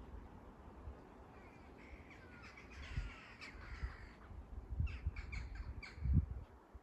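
Birds calling: several falling calls, then a quick run of sharp notes about five seconds in. A few low thumps come in underneath, the loudest near the end.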